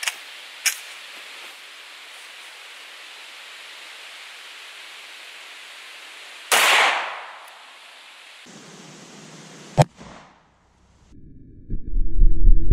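A Glock 17 9mm pistol fires a single shot about six and a half seconds in, loud and fading over about a second. A second sharp crack comes near ten seconds, and near the end a deep, drawn-out boom: the shot slowed down.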